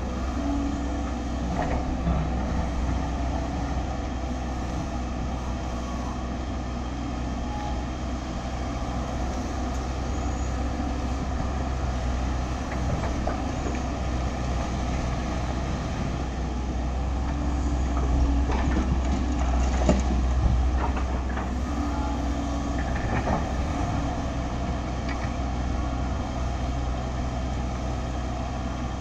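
LiuGong 915E crawler excavator's diesel engine running steadily under digging load, with a few short knocks and scrapes of the bucket in the soil, most of them around the middle.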